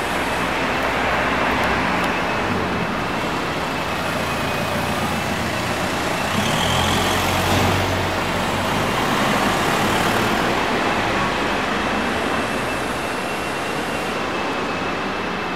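Steady urban road-traffic noise, a continuous rumble and hiss of passing vehicles, swelling slightly about halfway through as a vehicle passes.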